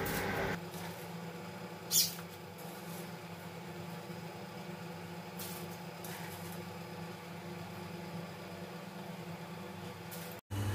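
Large steel pot of spiced water at a rolling boil as rice is tipped in, faint under a steady low hum. There is one short sharp splash about two seconds in.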